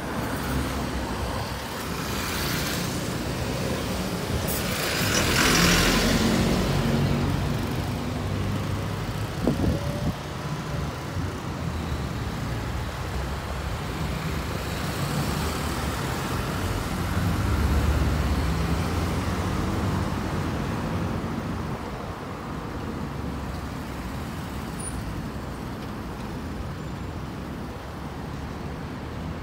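Road traffic on a busy city avenue: cars and buses passing. A burst of hiss about five seconds in, and a heavier vehicle's engine rumble swells and passes a little past the middle.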